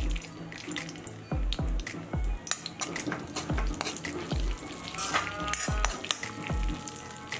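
Chopped cashews sizzling in hot ghee in a steel kadhai, with a spoon scraping and clinking against the pan as they are stirred. A low thumping beat of background music runs under it.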